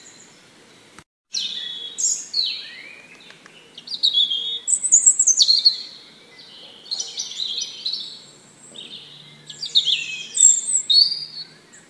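Small birds chirping in quick runs of high notes, with a brief cut to silence about a second in.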